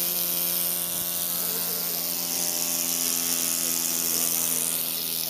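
Small homemade pneumatic motor with an acrylic body and aluminium flywheel, running on compressed air. It makes a steady whirring hum under a strong high hiss of air.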